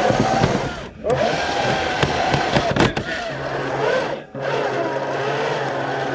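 Remote-control rock crawler's small motor and gear train whining, the pitch rising and falling as the throttle is worked, heard close up. It cuts out briefly about a second in and again just past four seconds.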